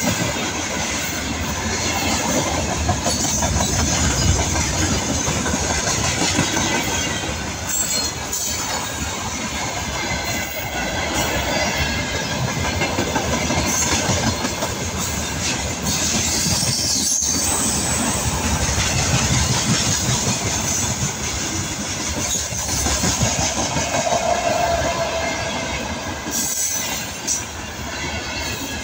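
Freight train wagons rolling past close by: a steady rumble with the wheels clattering over the rail joints.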